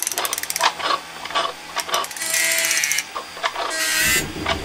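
Mechanical sound effects for an animated logo intro: a fast run of clicks and ratchet-like clatter, then a whirring sweep, more clicks, and a second whirring sweep near the end with a low rumble under it.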